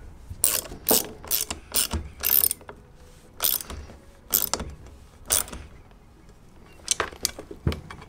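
Hand ratchet clicking in short strokes as a fastener is tightened: quick strokes about two a second at first, then slower ones about a second apart, a pause, and a few quick clicks near the end.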